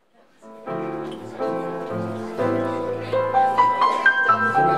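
Jazz trio of piano, bass and guitar playing, fading in from silence just after the start: sustained chords over a walking low bass line, with a single-note melody climbing higher about three seconds in.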